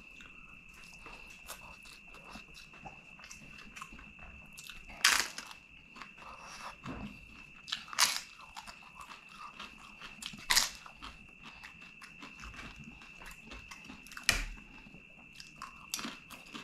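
Close-miked eating sounds: four loud, sharp crunches of a crisp fried papadam being bitten, with soft wet chewing and small mouth clicks between them. A faint steady high whine runs underneath.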